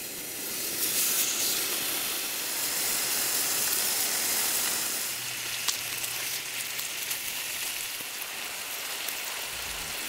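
Korean beef sirloin searing in a hot pan on a gas burner, a steady sizzle, with one sharp tick about five and a half seconds in.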